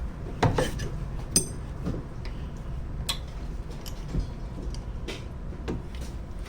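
Scattered metallic clicks and clinks of hand tools and engine parts being handled during an engine teardown, a few sharp knocks spread over several seconds.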